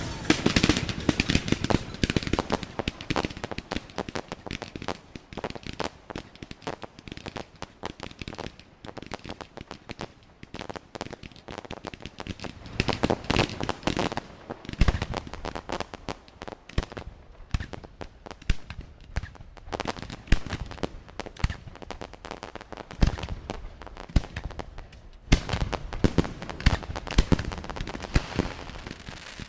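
Fireworks display: rapid irregular crackling and popping of exploding shells and stars, with louder bangs scattered through and a denser, louder barrage in the last few seconds.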